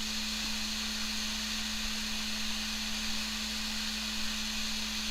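Steady hiss with a constant low hum from running equipment, unchanging throughout.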